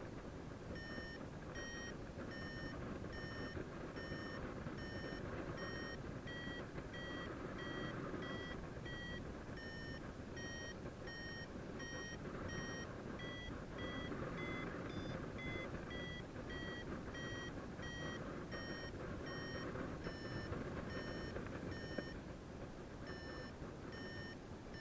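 Paragliding variometer beeping in a steady rhythm, a little over one beep a second, the climb tone that signals rising air. The beeps rise in pitch in the middle, a stronger climb, then drop back, with a short break near the end. Wind rushes on the microphone beneath them.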